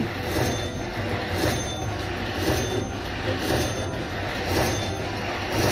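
Bao Zhu Zhao Fu poker machine counting up a bonus-feature win, its tally sound running over a steady low rumbling din.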